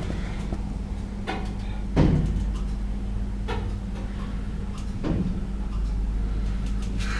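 Lift in operation: a steady low hum, with several short clicks and one louder thump about two seconds in.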